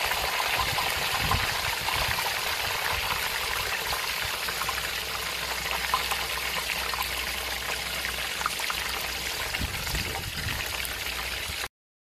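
Beer-battered cod fillets deep-frying in hot oil in a cast-iron Dutch oven: a steady, dense sizzle of vigorously bubbling oil. It cuts off suddenly near the end.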